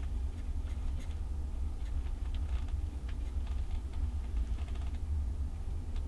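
Wind in a snowstorm buffeting the microphone with a steady low rumble, and faint, irregular light ticks scattered through it.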